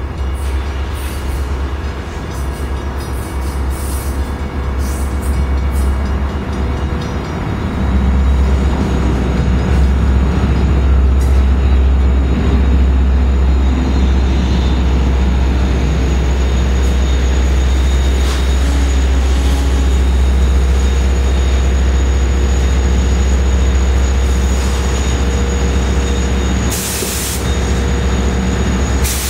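Long Island Rail Road diesel-hauled train of bilevel coaches pulling past the platform. Engine drone and wheel rumble grow loud about a quarter of the way in and stay steady. A faint thin squeal runs through the second half, and there is a short hiss near the end.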